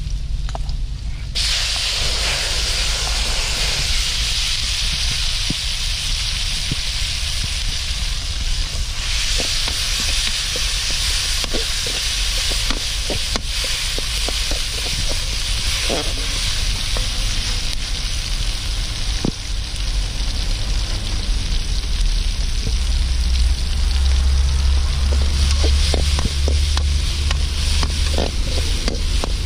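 Tomatoes going into hot oil and fried garlic in a pan: a sudden loud sizzle about a second and a half in, then steady frying with scattered clicks of a utensil stirring in the pan. A low rumble underneath grows louder near the end.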